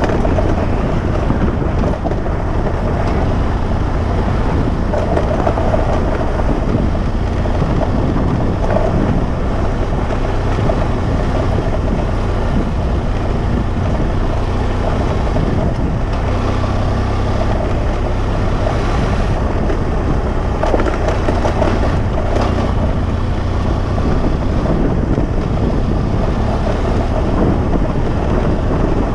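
A vehicle driving along a dirt track: steady engine and road noise, with wind on the microphone.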